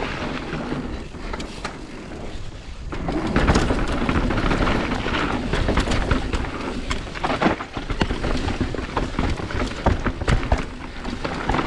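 Mountain bike riding fast down a bike-park trail: a continuous rumble of wind and tyres over dirt and rocks, with frequent clicks and knocks from the bike rattling over bumps. It grows louder about three seconds in.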